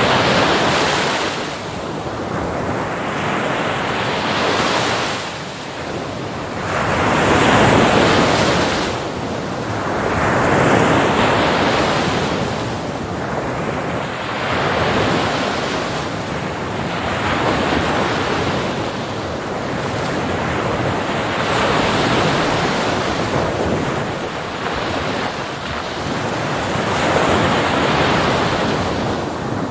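Ocean waves breaking on a beach, a steady rush of surf that swells and recedes every few seconds.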